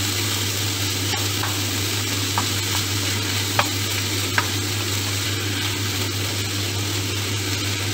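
Beef mince and diced onion sizzling as they brown in a frying pan, stirred and broken up with a spatula, with a few short knocks of the spatula against the pan in the first half, over a steady low hum.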